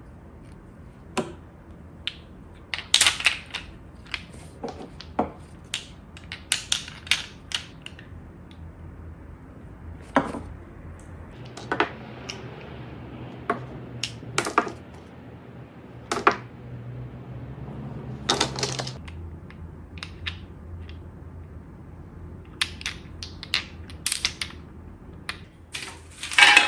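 Irregular clicks and light knocks, as of small hard objects being handled, over a faint low steady hum.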